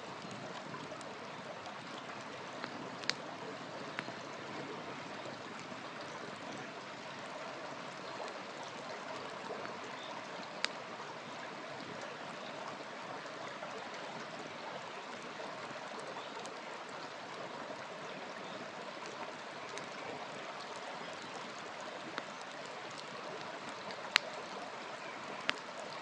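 Wood campfire burning with a steady crackling hiss and about five sharp pops, the loudest near the end.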